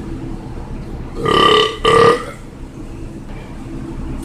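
A man's loud belch, coming in two pushes about a second in and lasting about a second in all.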